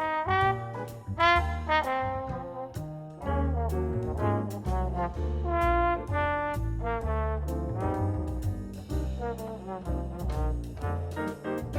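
Upbeat background music with brass horns, such as trombone and trumpet, playing a melody over a bass line and a steady beat.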